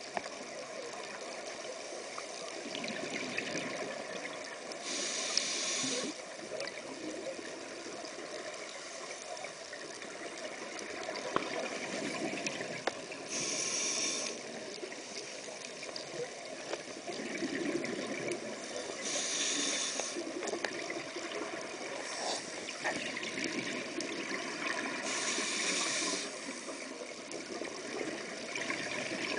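A scuba diver breathing through a regulator, heard through an underwater camera housing: a bubbly rush of exhaled air about every six seconds, four times, over a steady muffled water noise with a few faint clicks.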